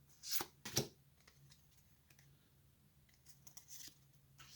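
Pokémon trading cards being handled: two short rustling swipes of card sliding over card in the first second, then faint light ticks and rustles, and a brief click near the end.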